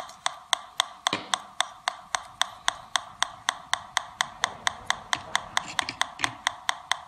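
Homemade Pi Polonez pulse-induction metal detector clicking steadily through its speaker, about five sharp ticks a second: the detector's audio pulse output running while metal is held near it.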